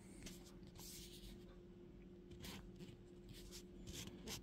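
Near silence: faint scattered rustles and light scrapes over a low steady hum.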